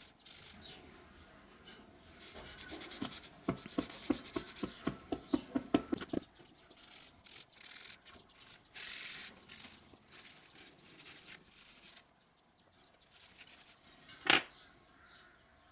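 A steel steering-head dust cover seal being scrubbed by hand with a rag and a Scotch-Brite scouring pad: quick back-and-forth rubbing strokes, about four a second for a few seconds, then more scrubbing. Near the end comes one sharp click as the metal seal is set down on the table.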